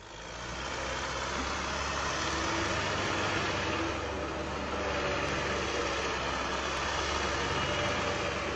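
Tractor engine running steadily while the tractor spins circles on an icy surface, under a constant rushing noise; the sound comes up over the first second.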